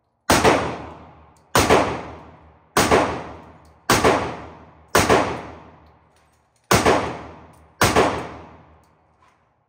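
Seven semi-automatic shots from an AR-15-style rifle, about a second apart with a slightly longer gap before the sixth, each sharp crack trailing off in a long echo.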